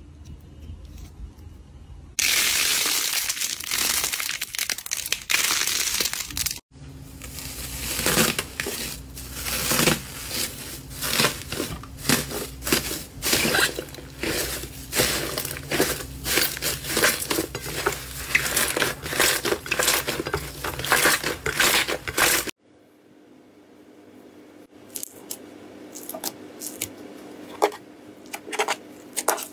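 Hands kneading slime studded with crumpled aluminium foil: a long run of dense, rapid crinkling and crackling. Near the end it gives way to quieter, scattered sticky clicks and pops as clear slime is pressed. Before that, about two seconds in, a loud steady hiss lasts some four seconds.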